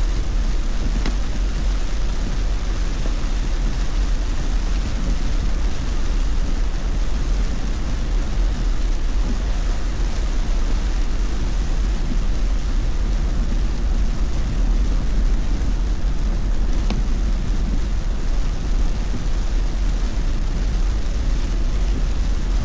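Steady road noise inside a moving car on a rain-soaked expressway: a deep rumble from the tyres and road with a hiss of rain and spray over it.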